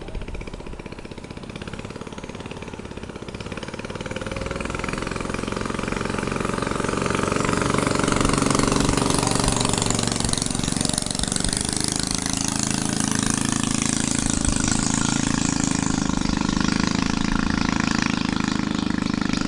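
Small engine running steadily, growing louder over the first eight seconds or so and then holding, with a steady hiss over it.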